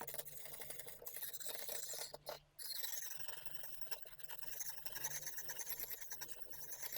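Lansky 280-grit hone stroking along a steel kitchen knife's edge in a sharpening clamp, a repeated gritty scraping with a short break about two and a half seconds in. The stone is being used dry, without honing oil.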